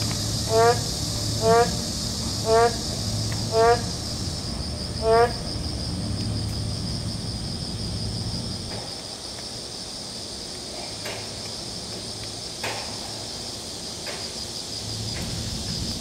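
Boreal digging frog (maengkkongi) calling: five short, nasal calls about a second apart in the first five seconds, each rising slightly in pitch, then stopping. Under them runs a steady high-pitched insect drone.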